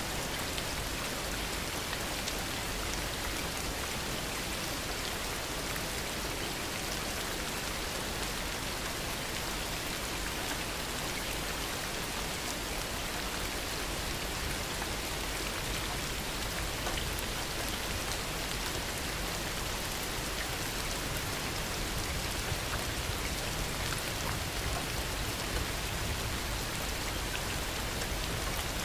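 Heavy rain falling steadily, an even hiss of many drops with no change in strength.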